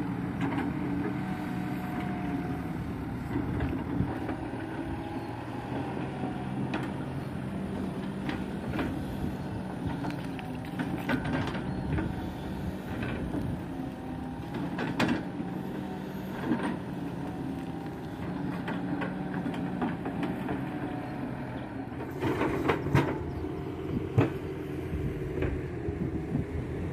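Kato HD512E tracked excavator's diesel engine running steadily under working load, with scattered knocks and clanks and several louder ones close together near the end.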